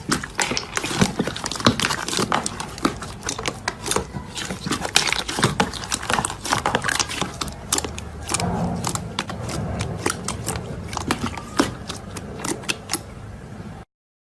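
Slime being squished and pressed by hand: a dense, irregular run of sticky clicks, crackles and pops. It cuts to silence just before the end.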